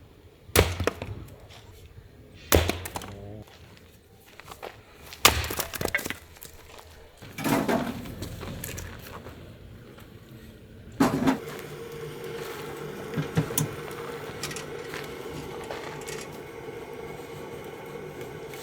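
Firewood being split with an axe: sharp strikes into logs, three of them about two seconds apart, then heavier knocks near the middle. A steady hum runs through the second half.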